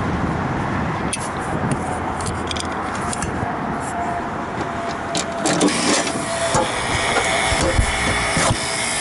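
Refrigeration condensing unit's compressor starting up about halfway through, a steady hum coming in over a steady hiss, after scattered clicks and knocks from hands working in the unit's electrical box.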